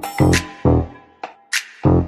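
Music with an electronic drum-machine beat of heavy, evenly spaced kick hits under pitched synth tones; the beat drops out for about half a second just past the middle.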